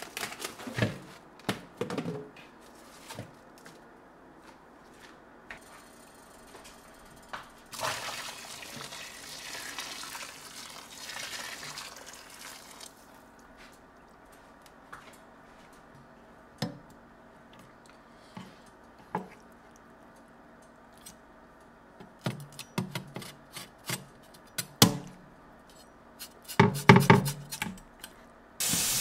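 Catfish pieces handled in a stainless-steel kitchen sink: scattered knocks and clunks of a bowl and knife against the sink and a wooden cutting board, with a quick flurry of knife strokes on the board near the end. Right at the end the tap is turned on and runs in a steady stream.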